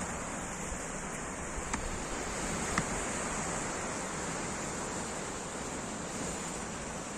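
Sea surf washing on the shore, a steady rush of noise, with two faint clicks about two and three seconds in.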